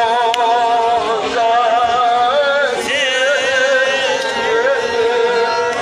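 A man chanting a lament (noha) through a megaphone, in long, wavering held notes that slide between pitches, rising to a higher phrase about halfway through.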